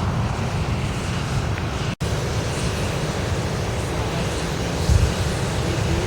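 Steady low rumble of wind buffeting the microphone, with a lighter hiss above it, cut off for an instant about two seconds in.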